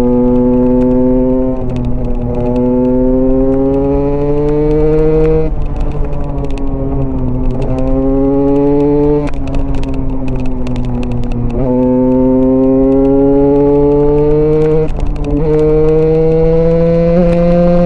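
Single-cylinder dirt-bike engine pulling hard under riding load. Its pitch climbs steadily for a few seconds, then drops sharply at each gear change or roll-off, about five times.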